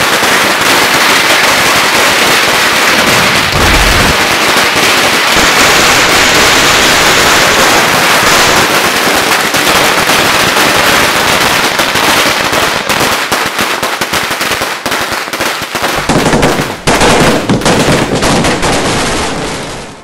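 A long chain of red-paper firecrackers going off: a loud, rapid, unbroken crackle of bangs that grows more ragged and uneven in the last few seconds.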